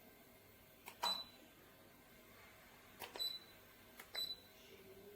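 Three short high beeps from a Cecotec EnergySilence Aero 4260 ceiling fan, each following a click: about a second in, then at three and four seconds. The beeps acknowledge commands sent from the fan's remote control.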